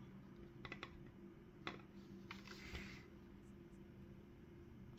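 Near silence with a few faint clicks and a short scrape: channel-lock pliers worked against the plastic shell of a smart plug.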